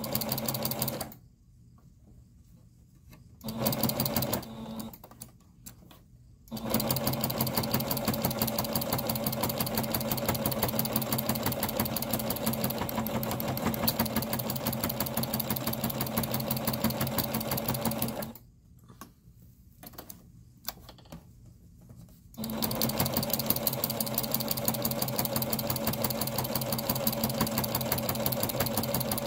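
Singer electric sewing machine running a straight stitch through layered terry cloth and cotton, a fast, even stitching hum that runs in spurts. It stops about a second in, runs briefly around four seconds in, runs for about twelve seconds, pauses for about four seconds and starts again.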